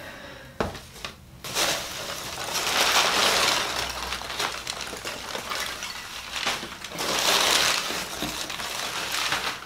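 Packing material rustling and crinkling as hands dig through a plant shipping box, with a couple of knocks about half a second and a second in before the rustling swells.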